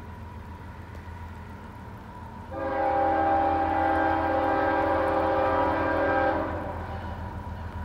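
Air horn of CSX ES44AC-H locomotive 717, approaching in the distance, sounding one long chord-like blast of about four seconds, the standard warning for a grade crossing.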